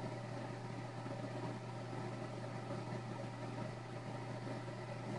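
Steady low hum with a faint even hiss, unchanging throughout.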